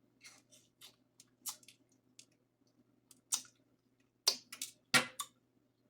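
Close-up eating sounds: irregular wet mouth clicks and smacks while chewing, with two louder smacks near the end.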